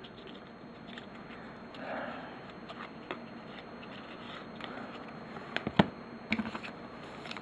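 Faint handling of trading cards: soft rustling and sliding, with a few light clicks about two-thirds of the way through.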